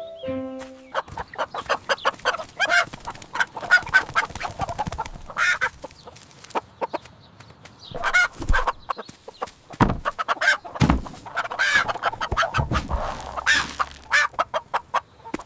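Chickens clucking over and over in short calls, with a few dull low thuds near the middle.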